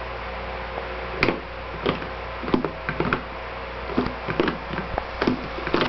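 About eight light knocks and taps at irregular intervals, over a faint steady background hum.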